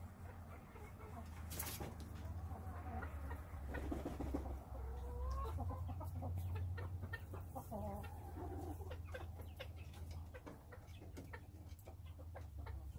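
Chickens clucking softly in short calls, with scattered light clicks and a steady low hum underneath.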